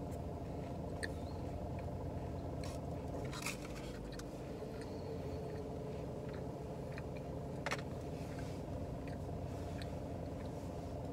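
Close-miked chewing with scattered wet mouth clicks and smacks, over a steady low hum inside a car.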